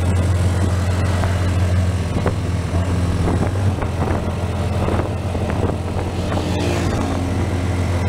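Mototaxi's small motorcycle engine running steadily under way, a constant low drone with road and wind noise, and a few brief changes in pitch about halfway through.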